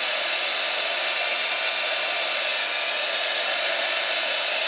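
Embossing heat tool running steadily on its high setting: an even rush of blown hot air with a faint high whine from its fan.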